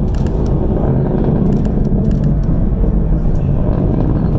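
Delta IV Medium rocket's engine exhaust during ascent: a loud, steady low rumble with a few faint crackles.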